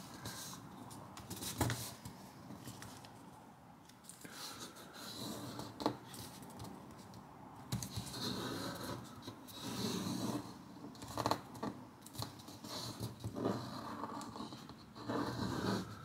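A sheet of origami paper handled and folded by hand: intermittent rustling and scraping as fingers slide along and press the folds, with a few sharp crisp clicks scattered through.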